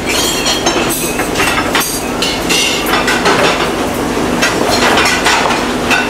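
Busy restaurant kitchen: the steady hum and rush of extraction hoods, with frequent clatter and clinks of pans, plates and utensils.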